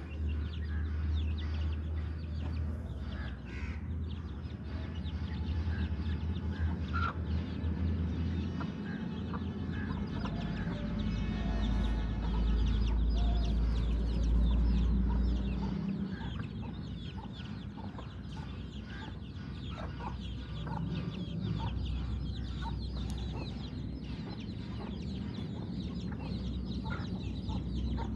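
A flock of aseel chickens clucking and calling, with a longer drawn-out call about halfway through that may be a rooster's crow, over a steady low rumble.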